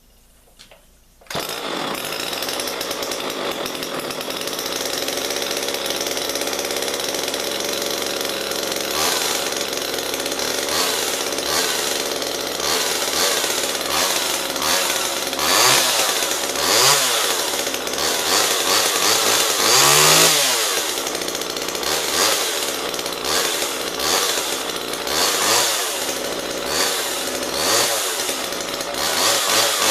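A 1979 Homelite XL two-stroke chainsaw starts up suddenly about a second in and runs. It is then blipped on the throttle again and again, its pitch rising and falling with each rev, the highest around two-thirds of the way through.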